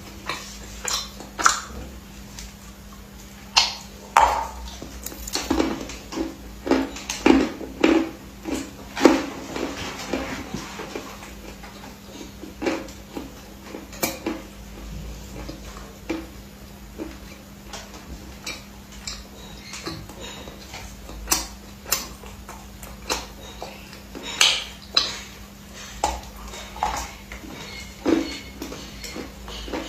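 Close-miked mukbang eating: irregular crunches, clicks and smacks of chewing crab biryani, with dishes and cutlery clinking. A steady low hum runs underneath.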